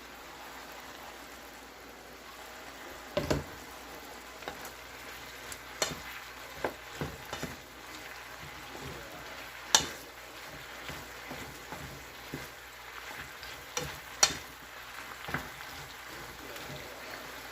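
Sliced chicken breast sizzling in a pan with onion and garlic, a steady frying hiss, broken by a few sharp knocks on the pan, the loudest about ten seconds in.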